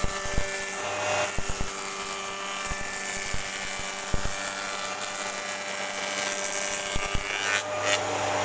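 Spindle moulder running steadily with a humming whine while a board is fed by hand past its cutter, with a few short dull knocks. A brief, louder burst of cutting comes near the end.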